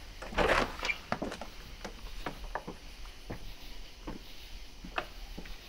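A wooden front door being opened and handled, with soft steps: a short rustle about half a second in, then a string of light, irregular knocks and clicks, the sharpest about five seconds in.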